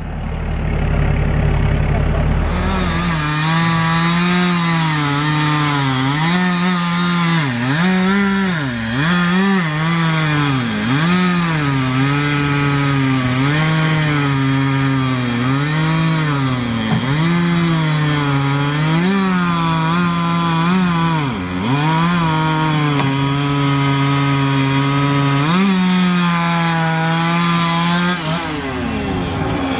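A low engine rumble for the first few seconds, then a two-stroke chainsaw at full throttle cutting wood. Its pitch drops again and again as the chain bogs in the cut and climbs back as it clears. About two seconds before the end the throttle is released and the pitch falls away.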